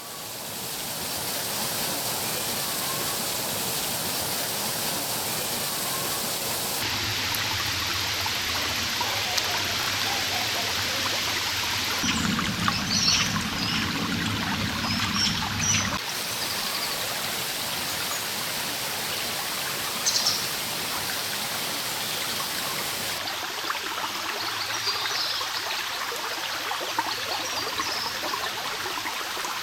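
Running stream water, a steady rushing, with short bird chirps over it in places. The water sound changes abruptly several times where separate recordings are joined.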